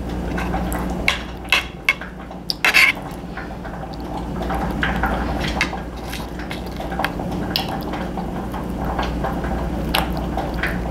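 A metal fork clinking and scraping on a dinner plate: a scatter of short sharp clicks, the busiest about one to three seconds in, over a steady low background hum.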